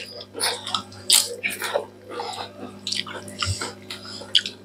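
Close-up eating sounds: irregular crisp crunches of roasted papad mixed with wet chewing and mouth sounds.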